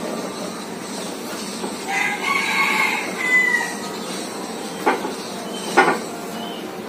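A rooster crows once, a long call held steady and then dropping at the end. Later come two short thumps about a second apart, bare feet stepping on the wooden floorboards as a person gets up from a prostration.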